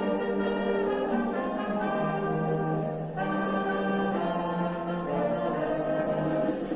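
A national anthem played on brass and orchestra with many voices singing along in long held notes.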